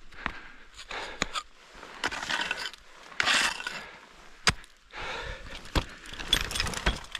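Metal ice-climbing hardware jangling and clinking, with several sharp knocks and scrapes of climbing gear on ice.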